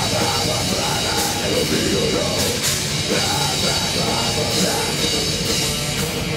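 A heavy metal band playing live, with electric bass and drum kit in a dense, steady wall of sound.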